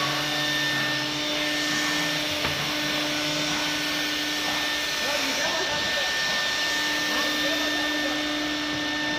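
Steady whir of an electric motor in a woodworking shop, with a constant hum that drops out for a moment past the middle.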